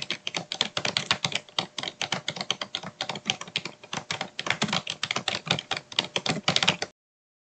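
Fast typing on a computer keyboard: a quick, continuous run of keystroke clicks that stops abruptly about seven seconds in.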